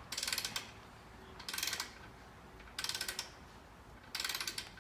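Ratchet wrench clicking in four short bursts, one back-swing about every second and a half, while a motorcycle swingarm's fixed pivot pin bolt is tightened towards 160 newton metres.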